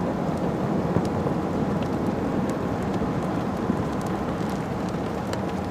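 Thunderstorm noise: a steady rush of wind and rain, with scattered sharp taps of drops striking.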